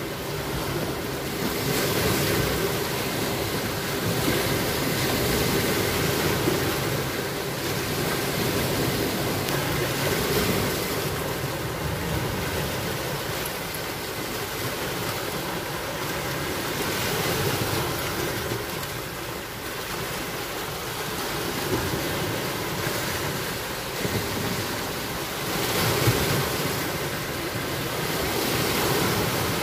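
Sea waves washing against a rocky shore, swelling and easing every few seconds, with wind buffeting the microphone.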